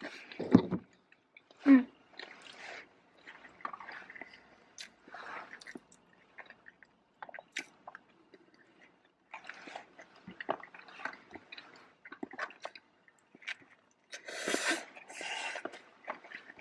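Close-miked chewing and mouth sounds of people eating, with scattered small clicks, two louder knocks in the first two seconds and a longer rustling burst about fourteen seconds in.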